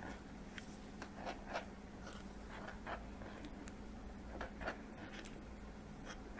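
Spoon stirring sesame seeds into thick black honey (molasses) in a glass bowl: faint, irregular scrapes and light taps against the glass.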